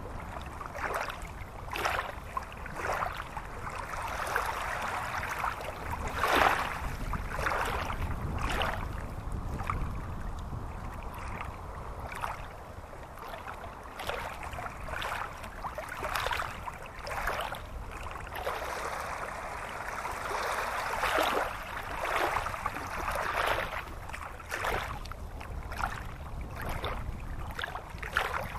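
Shallow rocky stream rushing and splashing over stones, in irregular surges.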